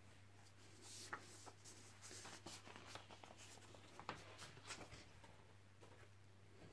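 Faint rustling and light taps of animation cels being handled as one is lifted off the stack, over a steady low hum.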